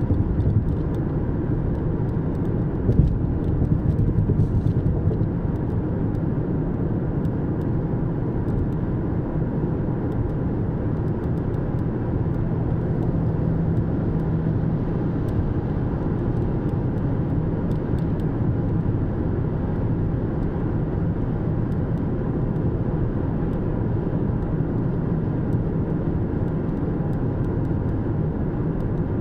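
A car driving on the road, with a steady low rumble of engine and tyre noise and a brief thump about three seconds in.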